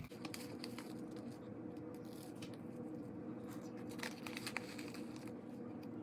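Faint scattered clicks and scrapes of a stick scooping glitter and tapping it into a bowl, over a faint steady hum.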